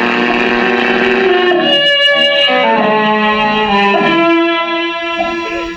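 Musical interlude of an old-time radio drama, played from a Bluetooth source through a Silvertone tube radio's speaker: held chords that change every second or so and ease off slightly near the end.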